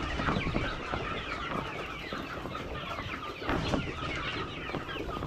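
A large flock of chickens clucking and calling together, a steady dense chorus of many overlapping calls, as they crowd the feeders at feeding time.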